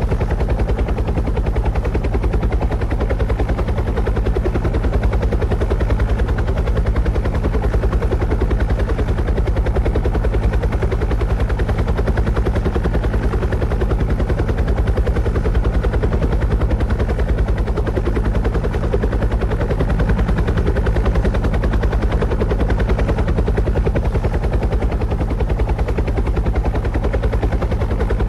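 Steady rotor noise: a fast, even low chopping over a low hum, unchanging in level throughout.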